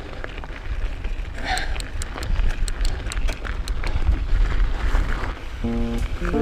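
Mountain bike ridden uphill, heard as a low rumble of wind and movement on a chest-mounted action camera's microphone, with a run of sharp ticks about four a second through the middle. Background music comes in near the end.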